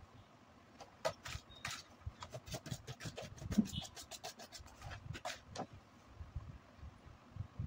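A quick run of light clicks and taps, several a second, lasting about five seconds and then dropping away to a few soft low knocks.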